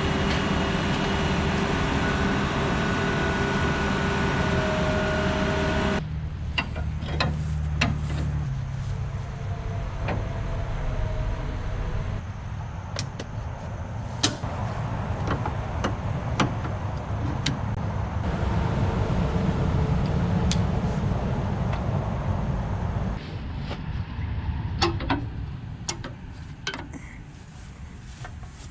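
Combine harvester engine running steadily, with a held pitch for the first six seconds. The sound then changes abruptly to a lower rumble with scattered sharp metal clanks and knocks, typical of a combine header being unhitched and set onto its trailer.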